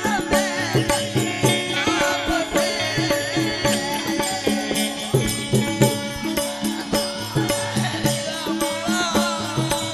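Devotional folk singing: men's voices singing an Aaradhi bhajan over a steady drone, with small hand cymbals keeping an even beat.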